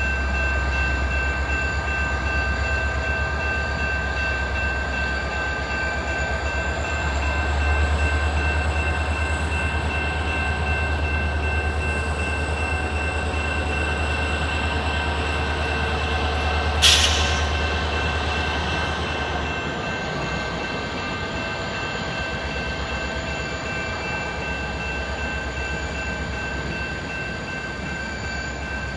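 Freight train rolling slowly through a tight curve, its wheels giving off a steady high-pitched flange squeal over a low rumble. There is one sharp knock about two-thirds of the way through.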